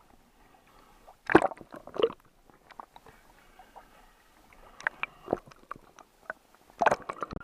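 Water sloshing and splashing around a camera in a waterproof housing, muffled by the case, in irregular bursts with short knocks. The loudest bursts come about a second in and near the end.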